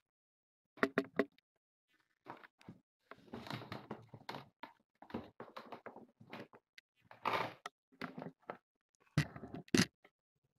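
Handling noise from a camera being picked up and repositioned: irregular bumps, knocks and rubbing, ending with two sharp knocks as it is set down.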